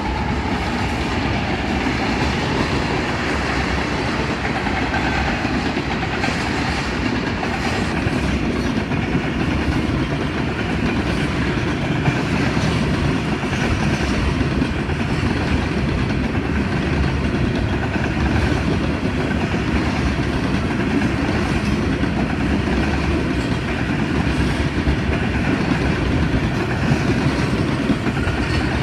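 Union Pacific freight train rolling past, a steady rumble of wheels on rail with repeated clicks as the wheels cross rail joints.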